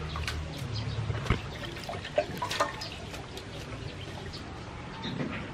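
Water splashing and dripping as handfuls of leafy greens are swished and lifted out of a metal basin of water, with a few sharp splashes in the first three seconds.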